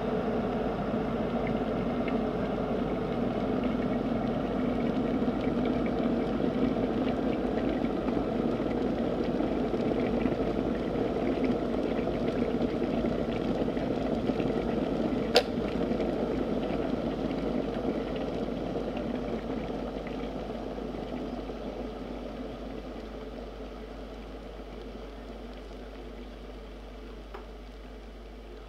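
Water boiling, a steady bubbling rumble that fades away over the last ten seconds, with one sharp click about halfway through.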